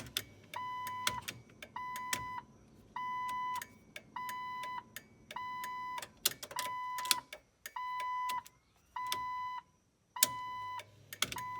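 Jeep Wrangler dashboard warning beep repeating evenly about once every 1.2 seconds, each beep a steady tone of about half a second with a click as it starts and as it stops, sounding while the new headlight/turn-signal switch is tested.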